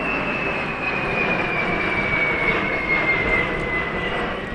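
Airbus A321neo's turbofan engines passing overhead in a flying display: a steady jet rumble with a high fan whine that slowly falls in pitch.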